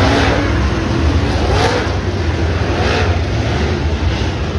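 Dirt late model race cars' V8 engines running as they circle the dirt track: a deep steady rumble, with the engine pitch rising and falling a few times.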